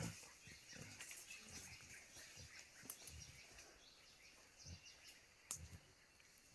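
Faint forest field audio from a video of young mountain gorillas playing in undergrowth: soft rustling and low thuds over a faint high hiss of the forest, with a sharp click about three seconds in and another near five and a half.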